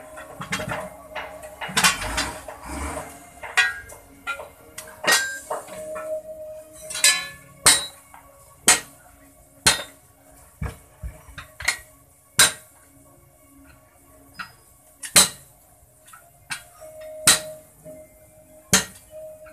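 Steel tyre irons and a hammer striking steel lock-ring truck wheel rims: sharp metallic clanks at irregular spacing, about once a second, some ringing briefly. A busier stretch of scraping and knocking metal on the rim comes in the first few seconds.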